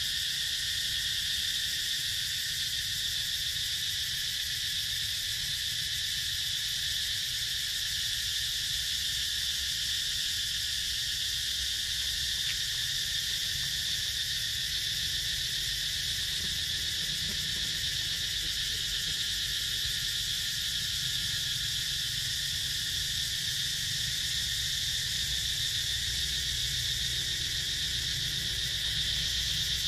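Steady, unbroken chorus of insects, high-pitched and continuous, with a low rumble underneath.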